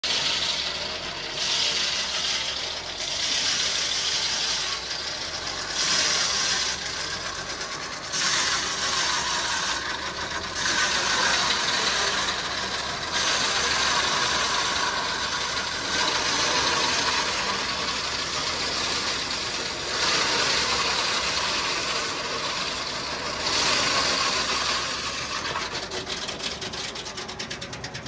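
Foley Belsaw circular sawmill blade cutting through a big dried oak log, powered by a Ford 4000 tractor engine running under load. The sawing hiss swells and fades every second or two as the blade bites into the wood. The owner says that sawing slabs this size is too much for the small tractor.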